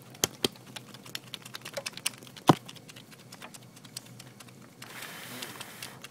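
A sheet being waved to fan a temperature sensor, crackling and clicking irregularly, with one sharper click about two and a half seconds in. Near the end comes a brief rushing hiss of moving air.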